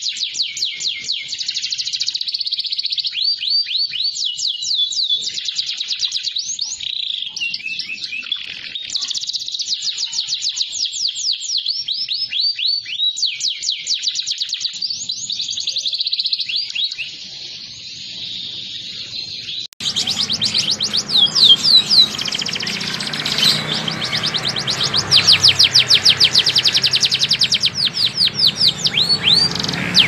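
Domestic canaries singing: long, fast trills of rapidly repeated notes mixed with quick sweeping whistles. About two-thirds of the way through, the sound cuts abruptly to a second canary singing louder over a low steady background rumble.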